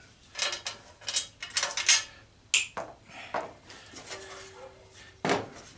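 Sheet-metal clanks and rattles as the steel case of an old golf cart battery charger is handled and worked off its loosened transformer: a string of separate knocks, with a sharp bang near the end.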